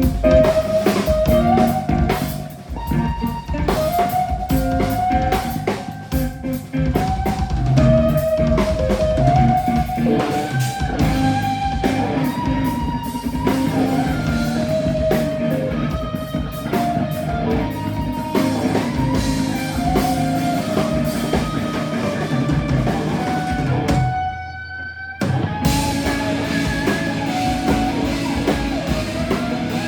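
Rock band playing a song: a guitar melody over drum kit and bass. About three-quarters of the way through, the band stops dead for about a second, then crashes back in.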